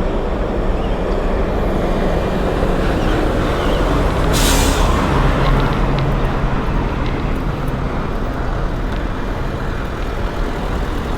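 Road traffic passing close by: a steady rumble of vehicles, with a brief hiss about four seconds in.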